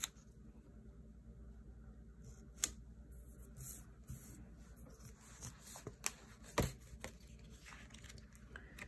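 Faint rustling and a few soft ticks of paper sticker sheets being handled and flipped through, with a sharper tick now and then.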